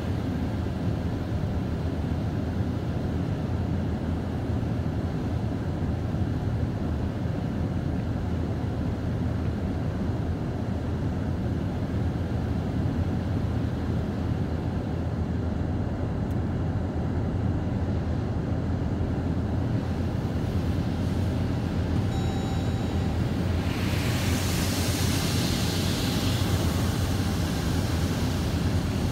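Automatic car wash heard from inside the car: a steady low rumble of the wash machinery and water. About 24 seconds in a louder hiss of spray on the glass rises and fades over a few seconds.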